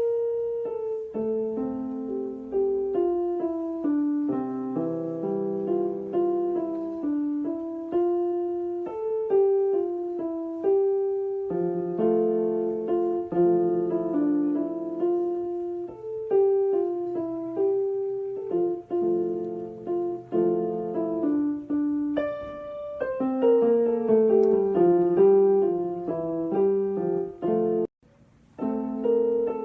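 Background piano music: a gentle melody with chords, which breaks off briefly about two seconds before the end and starts again.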